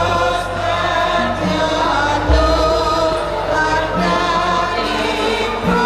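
Javanese gamelan music playing, with voices singing along over sustained metallic notes; a deep low note sounds about two seconds in and rings on.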